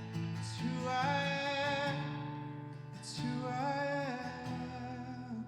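A worship song sung to acoustic guitar: a voice holds two long, wavering notes, about a second in and again about three seconds in, over strummed chords.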